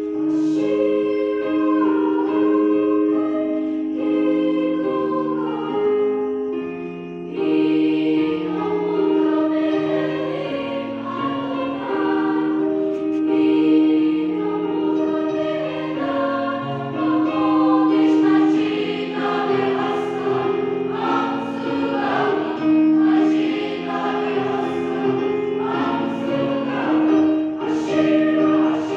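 Mixed choir of girls and boys singing a gospel song in several parts, holding long notes together.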